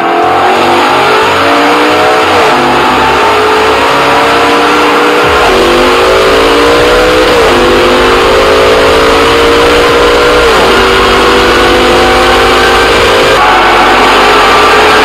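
V10 engine of a race-prepared car under hard acceleration through the gears. Its pitch climbs, then drops sharply at each of four upshifts about two to three seconds apart, then climbs slowly again.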